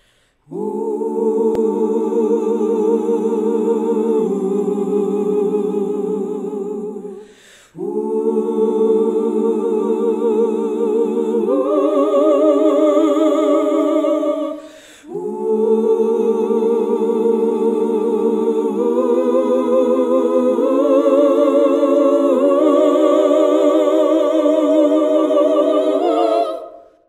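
Unaccompanied gospel choir vocals: nine overdubbed harmony parts sung by one singer, holding wordless chords with vibrato. They come in three long phrases, each broken by a short breath gap, and the chords step upward within each phrase.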